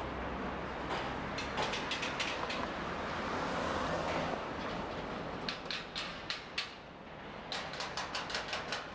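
Construction-site noise: three runs of rapid, sharp metallic clacks and knocks, several a second. They come over a steady city rumble.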